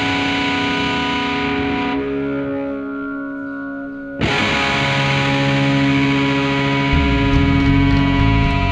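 Rock music led by sustained, distorted electric guitar chords through effects. About two seconds in the sound turns quieter and muffled, then cuts back in full about four seconds in, and a heavy low bass part comes in near the end.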